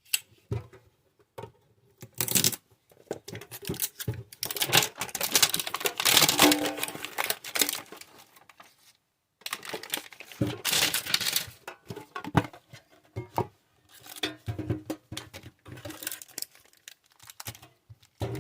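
Plastic shrink wrap being torn and crumpled off a Pokémon card tin: irregular crackling and crinkling in two long spells, with a short pause between them.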